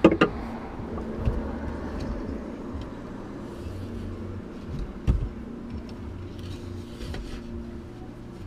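A low steady hum inside a car, with a few knocks as a wooden transfer board is handled against the seat and console, the loudest a single thud about five seconds in.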